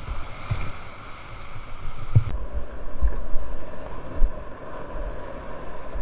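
Whitewater rapids rushing and crashing around a kayak, picked up close by an action camera with wind buffeting its microphone and scattered low thumps of water against the boat. About two seconds in, the sound abruptly turns duller.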